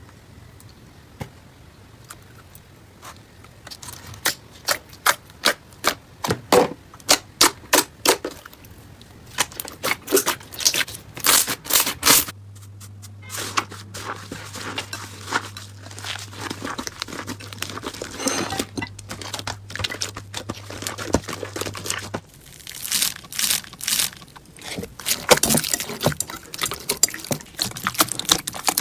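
Slime being squeezed and poked by hand, giving runs of sharp crackles and pops.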